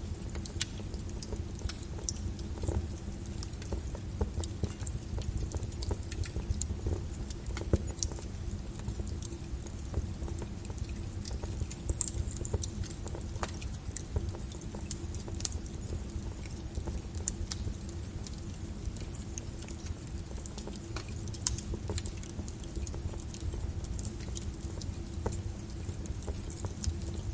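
Fire crackling, with scattered sharp pops and snaps over a steady deep rumble of brown noise.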